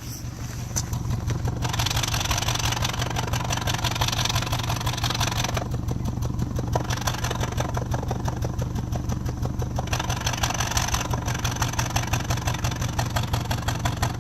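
Subaru EJ22 flat-four engine idling roughly, a steady low pulsing, with a higher hiss that comes and goes in stretches of a few seconds.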